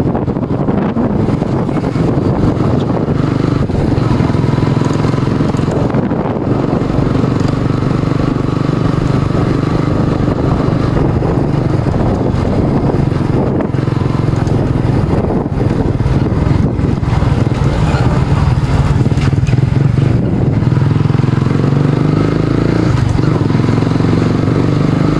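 Motorcycle engine running steadily while riding at a moderate, even pace, heard from the bike itself.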